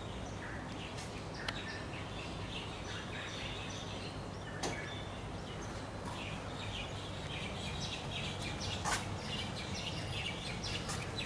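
Birds chirping and twittering in a garden over a steady outdoor background hiss, with three brief clicks spread through it.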